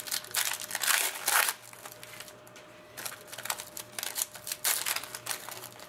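Foil wrapper of a trading card pack crinkling and tearing as it is ripped open by hand, then the cards sliding out, in a run of short rustles.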